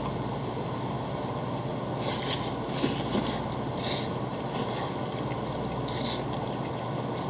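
Two people slurping seafood ramen noodles. A run of short, hissy slurps starts about two seconds in, over a steady low background hum.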